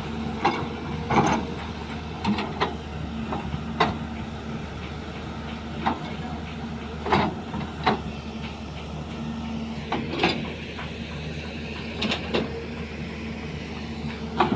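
JCB backhoe loader's diesel engine running steadily while digging, with sharp metallic clanks and knocks at irregular intervals.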